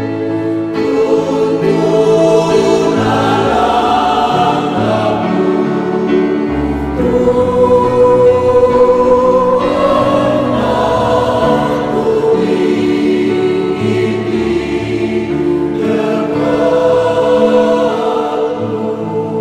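Mixed choir of men's and women's voices singing in harmony, holding long chords that change every second or two.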